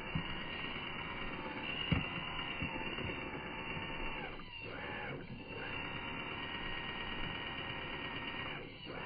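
Small-scale RC rock crawler being driven: the electric motor and gears whine steadily, dropping out and spooling back up a few times as the throttle is eased off around the middle and near the end. There are a couple of sharp knocks as the truck bumps over the terrain, the loudest about two seconds in.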